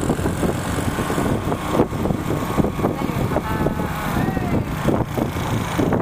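Motorcycle engine running at riding speed under steady wind rumble on the bike-mounted microphone, with surrounding street traffic.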